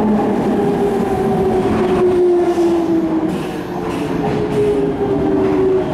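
Nankai 2000 series electric train's inverter-driven traction motors whining in several tones whose pitch slowly falls, over the rumble of the cars, as the train slows along the platform.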